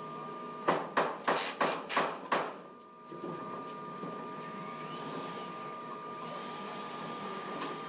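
A quick run of six sharp knocks, about three a second, from work on the wooden ceiling slats of a pavilion being assembled, over a steady machine hum.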